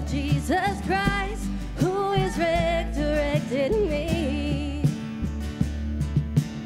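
A church praise team sings a worship song with band accompaniment, the voice holding notes with vibrato over a steady beat. The singing stops about five seconds in, leaving the instruments playing.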